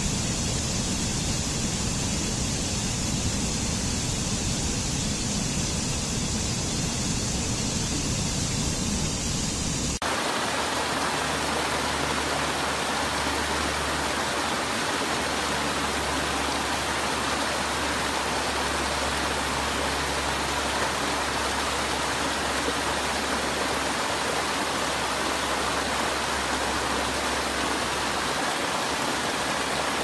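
Steady rushing of water cascading over rocks in a mountain stream. About ten seconds in it changes abruptly to a different recording of water spilling over small falls, a more even rushing with less deep rumble.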